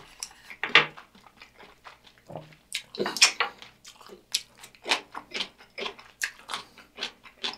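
Close-miked chewing of a mouthful of food: irregular wet smacks, clicks and small crunches, several a second.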